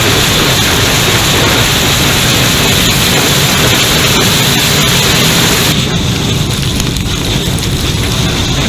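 LOX-propane liquid rocket engine firing, heard up close: a loud, steady rushing roar of the exhaust with scattered sharp ticks. About six seconds in, the roar turns a little duller and quieter.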